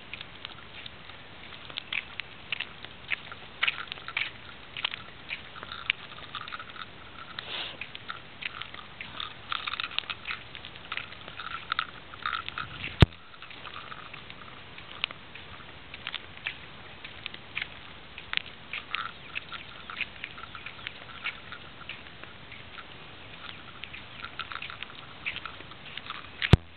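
Walking on an asphalt road with pets on leashes: a run of light, irregular clicks and ticks from steps, with one sharp knock about halfway through.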